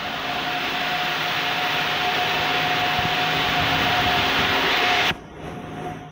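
Loud, steady rush of industrial air and machinery noise inside a spinning mill, with a steady tone running through it; about five seconds in it cuts off suddenly, leaving a quieter machine hum.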